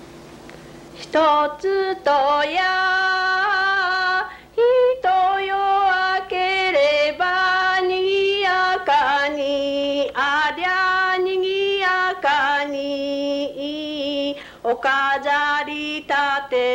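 A woman singing solo a traditional Japanese children's New Year counting song (warabe kazoe-uta) in long, drawn-out, wavering notes, starting about a second in.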